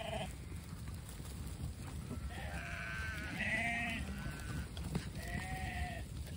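A mob of sheep on the move, several of them bleating, the calls overlapping, loudest about three and a half seconds in, over a steady low rumble.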